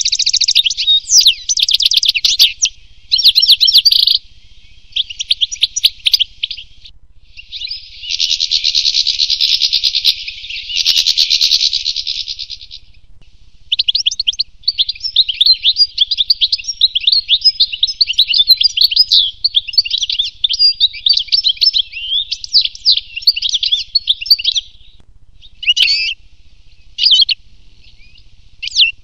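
European goldfinch singing: fast twittering, trilling phrases broken by short pauses, with a denser buzzy stretch about eight to twelve seconds in and only a few short bursts near the end.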